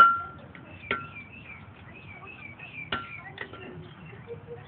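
Blacksmith's hammer striking iron on an anvil, a few separate blows with a bright metallic ring, the loudest right at the start and others about a second in and near three seconds. A bird chirps faintly between the blows.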